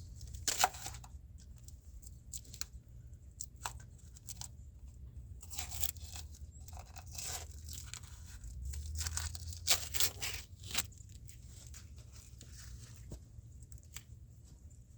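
Hands working on parts under the hood: scattered clicks and knocks with several longer scraping, rustling passes, about six, seven and ten seconds in, as a part is worked loose and taken off.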